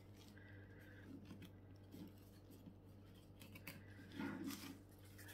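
Faint scissor snips and rustles of packaging being handled, scattered light clicks over a low steady hum.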